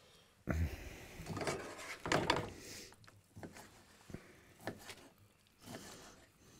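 Utensils and dishes handled while food is served: a spatula scraping and tapping on a cutting board and paper plates, with rustles and scattered clicks, loudest about two seconds in.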